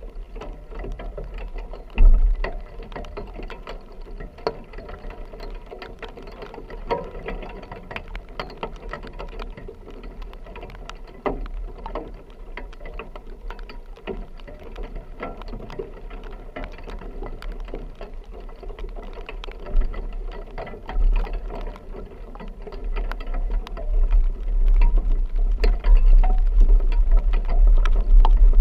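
Rain pattering fast and densely on a vehicle's roof and windshield, over a low rumble that grows louder near the end, with one sharp thump about two seconds in.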